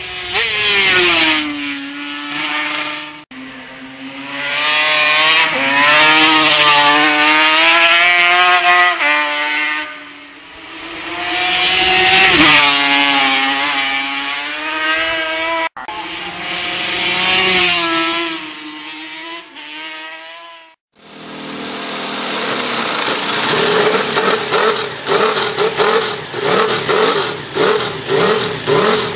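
Yamaha RD500's four-cylinder two-stroke engine revving hard as the bike is ridden at speed, its pitch climbing and dropping through gear changes over several short passes. About 21 seconds in, a Britten V1000's V-twin engine is heard instead: it starts, then its throttle is blipped over and over, about twice a second.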